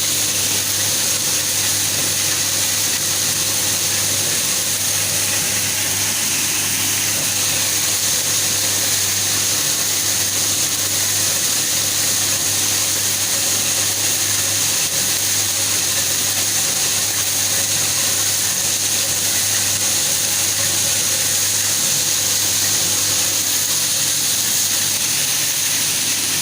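Krupuk-separating machine running steadily: a continuous mechanical whir with a constant high hiss and a low hum.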